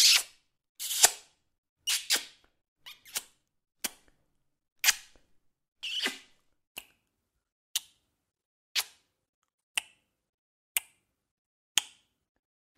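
Kissing sound effects: a string of sharp lip-smack kisses with silence between them. Over the first half they come irregularly, some drawn out. From about seven seconds in, single short smacks come evenly, about once a second.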